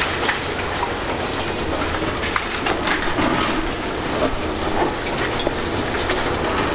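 Continuous clatter and crunching of demolition rubble, many irregular cracks and knocks, over a steady low rumble of heavy machinery.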